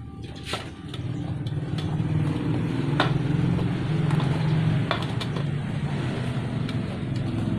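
A vehicle engine running steadily, most likely a motorcycle, coming in about a second in, with a few sharp clicks over it.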